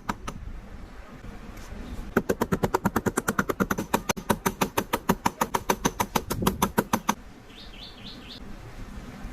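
A fast, even series of sharp knocks, about seven a second, running for about five seconds and stopping abruptly, followed by a few short high chirps.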